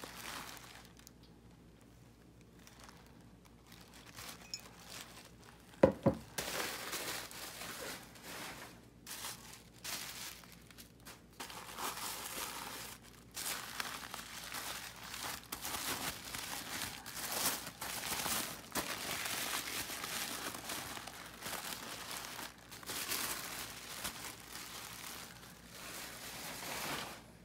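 Brown kraft wrapping paper crinkling and rustling as it is handled and pulled off items, continuous through most of the stretch after a quieter start. A single sharp knock about six seconds in, an object set down on the table.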